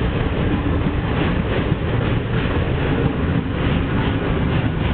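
Passenger train coaches rolling past, a steady rumble of wheels on the rails.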